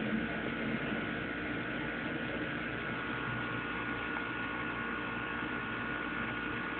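Steady hum with an even hiss and a thin constant whine, unchanging throughout.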